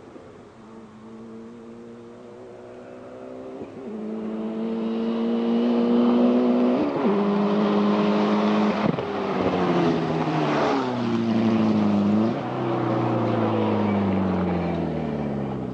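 A rally car's engine at full throttle comes closer and grows loud, rising in pitch with a sharp dip at each of several gear changes. It then passes and falls in pitch as it pulls away.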